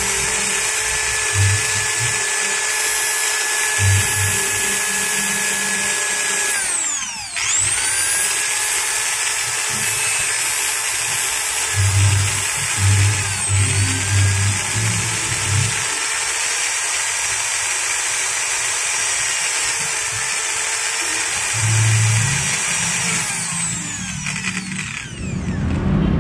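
Bosch GWS 5-100 angle grinder running with no disc, a steady high whine. About seven seconds in it cuts out and spins back up, with a shorter dip a few seconds later, and it winds down near the end. It runs normally and smoothly on freshly fitted carbon brushes, cured of being totally dead.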